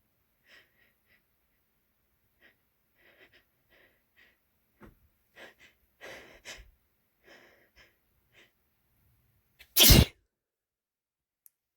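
A single loud, wet sneeze about ten seconds in, after several seconds of faint, short snuffly noises.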